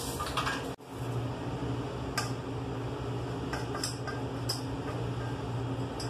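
Light metal clinks and scrapes of stainless-steel test sieves and aluminium foil trays as the ground corn retained on each sieve is tipped out; a few separate clinks over a steady low hum.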